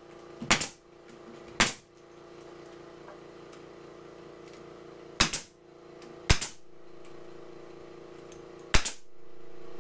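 Pneumatic crown stapler firing staples through a steel drywall corner bead: five sharp shots at uneven intervals, with a steady hum running underneath.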